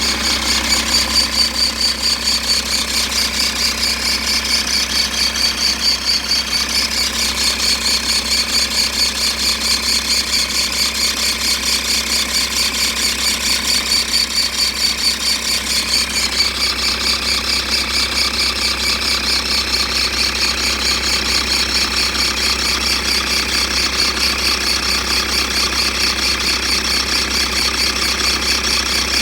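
Audi 2.5 TDI AEL five-cylinder diesel idling with a high, wavering squeak over it, the sign of a failing idler roller or pulley bearing, which the owner cannot yet pin down.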